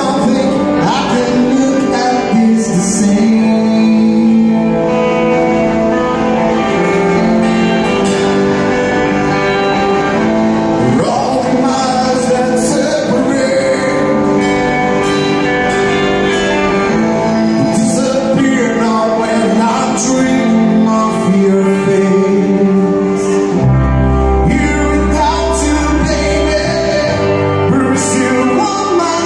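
A live rock band playing a cover song: electric guitar, bass guitar and drum kit with cymbals, with a male voice singing. Deep bass notes come in strongly near the end.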